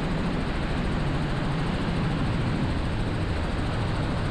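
Steady cabin noise of a Robinson R44 Raven II helicopter in cruise flight: a deep, even drone of rotor and engine with no changes.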